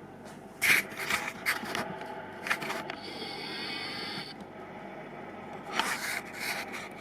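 Handling noise: a run of light clicks and scrapes, a steady rubbing hiss for about a second and a half starting three seconds in, and more clicks near the end.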